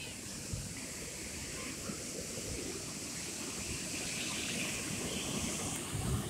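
Steady wash of ocean surf on the beach, with some wind rumbling on the microphone.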